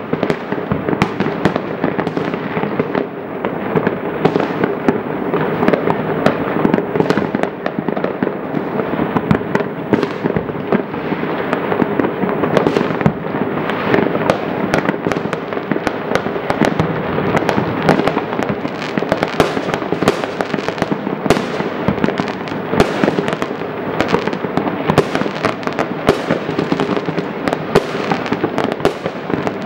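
Many fireworks going off at once, a dense, unbroken stream of overlapping bangs and crackles with no pause.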